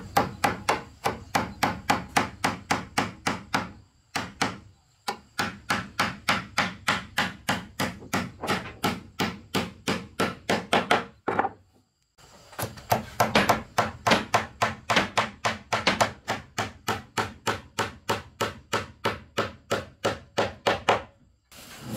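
Rapid, even blows on wood, about four a second, in three long runs broken by short pauses.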